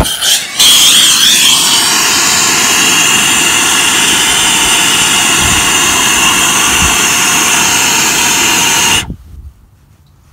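Air-acetylene hand torch lit with a flint striker: the flame catches about half a second in and burns with a loud, steady hiss, its pitch shifting briefly as the flame settles. The hiss cuts off suddenly near the end.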